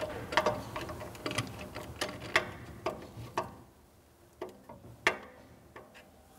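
Screws being driven to fix the door bracket to the pull-out's metal frame: a run of sharp clicks about twice a second over a faint steady hum, thinning to a few quieter clicks after about three and a half seconds.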